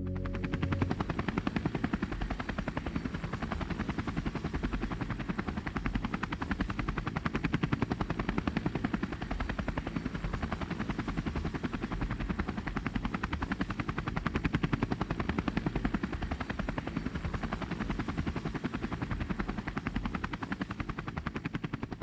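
Rotor noise from a rotorcraft: a rapid, even chopping that runs steadily and dies away near the end.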